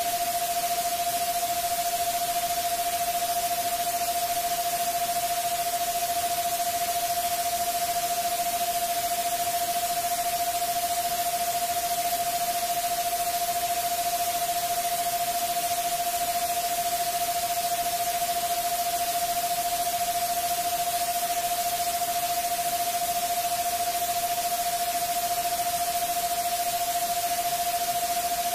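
A steady electronic tone of about 680 Hz, held unbroken over a loud, even white-noise hiss that is strongest in the treble: a synthesized 'subliminal frequency' sleep track.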